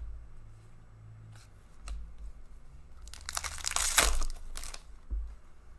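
A trading-card pack wrapper being torn open: a loud crinkling tear lasting about a second and a half, past the middle, with a few soft knocks and clicks of cards being handled around it.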